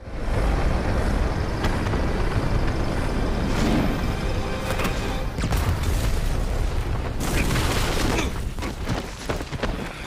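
Film sound effects of explosions and fire: a heavy, continuous rumble with repeated booms, mixed with dramatic music. It starts abruptly and thins out near the end.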